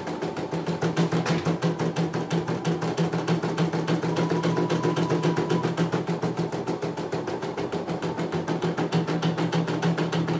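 CNY E900 portable computerised embroidery machine stitching a design: a steady, rapid rhythm of needle strokes over a steady hum.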